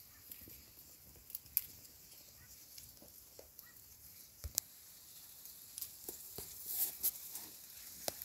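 Faint rustling with scattered light clicks and crackles of leaves and plant stems, louder near the end as leaves brush right against the phone.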